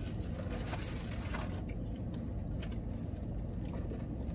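Steady low hum of a car's cabin with the engine idling, with a few faint small clicks and smacks of people eating and sipping inside the car.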